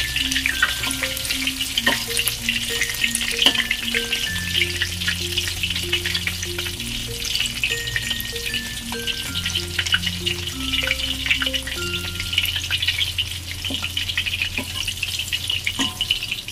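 Battered chicken wings deep-frying in hot oil in a wok, nearly cooked: a steady crackling sizzle with many small spatters. Now and then a metal spatula scrapes and taps against the wok as the pieces are turned.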